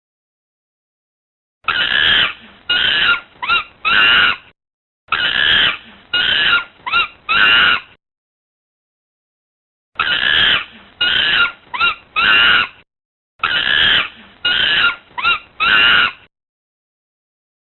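Monkey screeching: four bursts of about four shrill, swooping calls each, with dead silence between the bursts.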